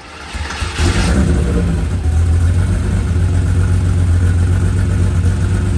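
Porsche 930 Turbo's air-cooled flat-six starting up: it catches about a second in, runs a little higher for a moment, then settles into a steady loud idle.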